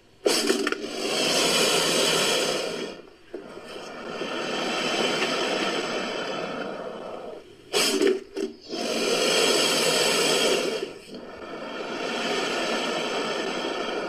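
Crocodilian sound effect standing in for a black caiman: a series of long, rough, noisy calls, each swelling and fading over a few seconds, with a quick cluster of short sharp ones a little past the middle.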